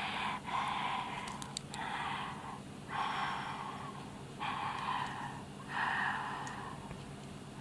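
Close-miked breathing of a person eating, about six soft puffs of breath in a row, with a few faint mouth clicks.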